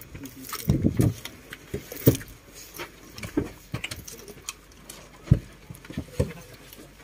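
Scattered light knocks, thumps and rustling from someone moving through a narrow aisle with bags and brushing past seats and luggage, at irregular intervals, the loudest a thump about five seconds in.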